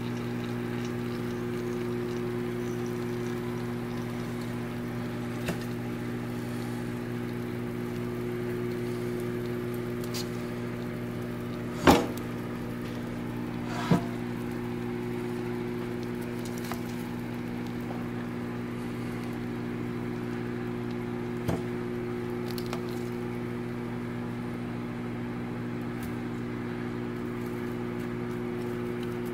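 Metal tongs clicking and knocking against the air fryer basket and chicken pieces, a few sharp knocks with the loudest about twelve seconds in and another two seconds later, over a steady low hum.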